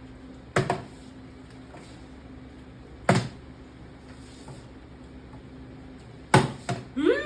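Sharp knocks of a plastic bottle landing on a hard surface in a bottle flip, one about half a second in, one about three seconds in, and two in quick succession near the end. A short voiced exclamation rises and falls right at the end.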